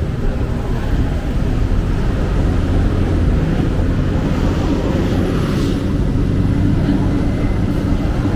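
Loud, steady, low engine rumble from a motor vehicle running close by, with a brief hiss rising about five and a half seconds in.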